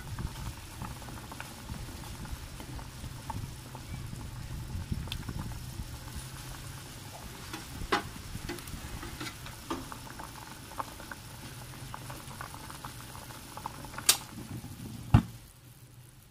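Chicken broth boiling in a stainless steel pot, a steady dense patter of popping bubbles. Sharp clicks sound about eight seconds in and twice near the end, the last one loudest, and the bubbling is much fainter after it.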